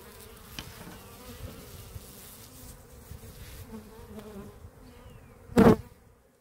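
Honey bees buzzing around a freshly hived package, a steady wavering hum. One loud knock about five and a half seconds in.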